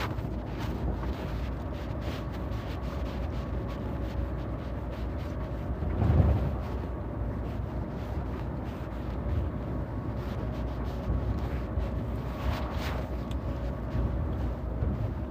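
Steady low rumble of a vehicle driving on the road with wind noise, swelling briefly to a louder whoosh about six seconds in.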